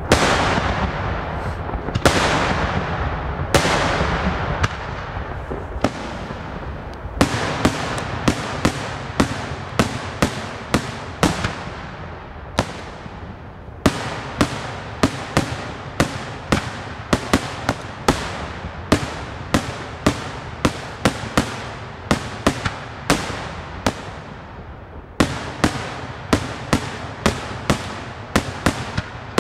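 Daytime fireworks display: a few heavy aerial bangs with long rolling tails in the first few seconds, then a rapid volley of sharp shell bursts, about two or three a second, with a brief lull near the end.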